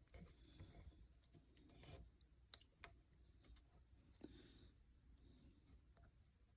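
Very quiet handling: a few faint sharp clicks and light rubbing as a 3D-printed PETG-CF sleeve is worked by hand onto a tight quick-disconnect hose fitting.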